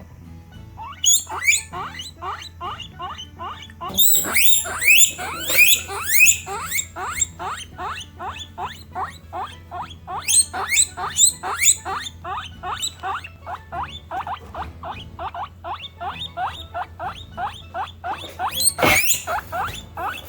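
Guinea pigs wheeking: a rapid, unbroken run of short high squeals, about three or four a second, with louder, overlapping bursts several times where more than one animal calls at once.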